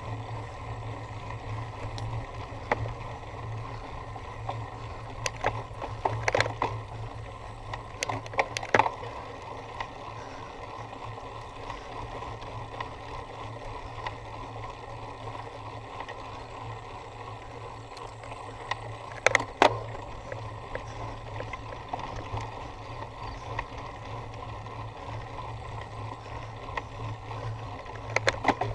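Cyclocross bike being ridden over rough ground: steady wind and tyre noise with scattered sharp rattles and knocks from the bike jolting over bumps, the loudest cluster about two-thirds of the way in.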